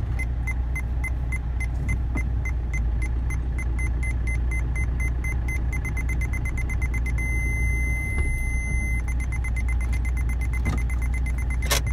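Aftermarket parking sensor buzzer beeping rapidly at a high pitch as the car reverses towards an obstacle, the beeps merging into one continuous tone for about two seconds past the middle, the close-range warning, then resuming. A steady low car engine hum runs underneath, and there is a sharp click near the end.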